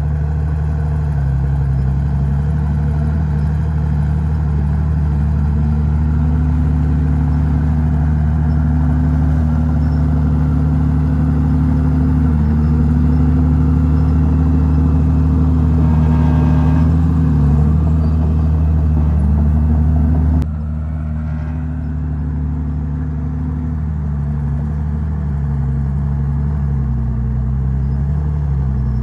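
Heavy diesel engine of earthmoving machinery running under changing load, its pitch rising and falling. The sound drops abruptly about twenty seconds in.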